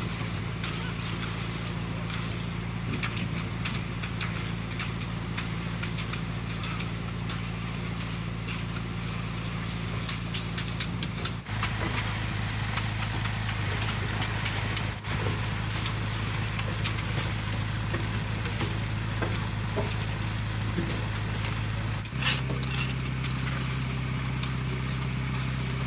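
Diesel engine of heavy construction machinery running steadily, with scattered clicks and rattles. The engine note changes abruptly about 11 seconds in and again about 22 seconds in.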